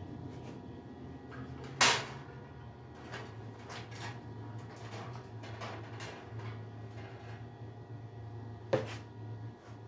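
Scattered light clicks and knocks, with two sharp, loud knocks about two seconds in and again near the end, over a steady low hum.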